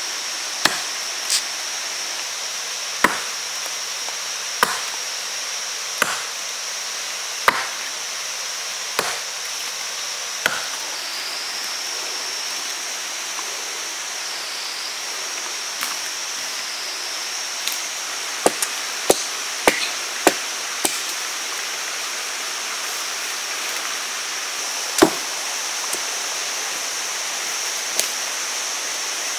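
Knife chopping, sharp separate strokes about one every second and a half at first, then a quick run of several a little past the middle and a single harder one later. A steady high hiss runs underneath.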